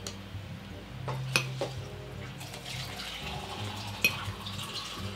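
Metal forks clinking and scraping against plates, with two sharp clinks about a second and a half and four seconds in, along with close, wet chewing of food.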